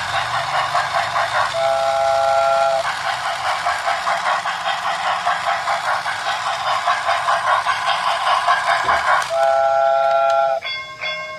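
Steam locomotive chuffing in a fast, steady rhythm, with two held chord whistle blasts: one about two seconds in, the other near the end. Right after the second whistle, a repeating chiming tone pattern begins.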